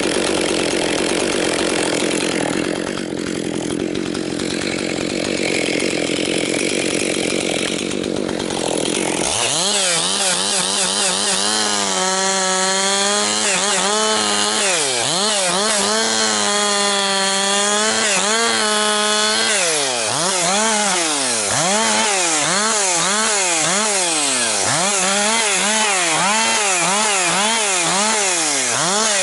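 Freshly rebuilt Husqvarna 262XP two-stroke chainsaw cutting pine firewood. For about the first nine seconds it runs through the wood with a dense, rasping noise; after that the engine pitch rises and falls over and over as the saw is throttled up and down through the cuts.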